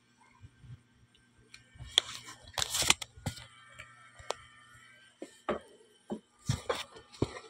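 Handling noise on a phone's microphone: a burst of rustling and scraping about two to three seconds in, then several separate sharp knocks and clicks.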